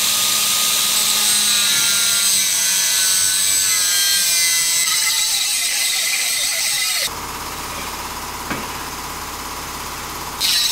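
A cutoff tool's thin cutoff wheel running at speed and cutting into the cast-aluminum shelf inside a GM 8.1 intake manifold, with a steady high whine over harsh grinding noise. About seven seconds in it drops to a quieter steady whine with a single click, and near the end the loud cutting starts again.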